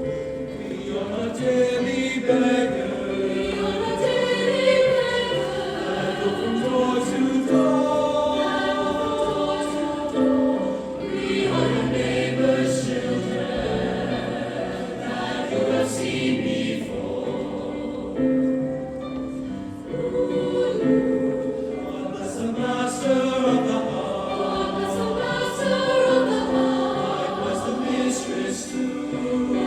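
A choir singing a song, with held notes that change pitch throughout.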